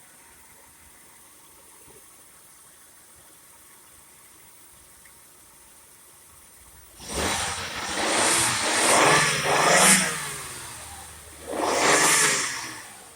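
Donor car's engine revved in a series of rising and falling swells, then once more, to push charge through jumper cables into a dead battery.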